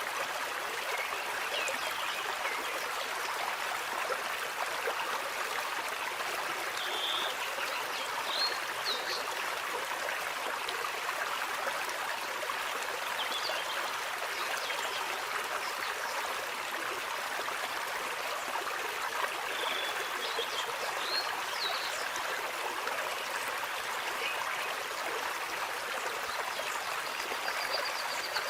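Steady babbling of a stream or brook, with a few short high chirps over it twice.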